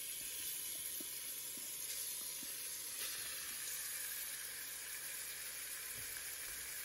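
Diced, spice-coated chicken breast frying in hot oil in a Dutch oven: a steady sizzle as the meat starts to brown.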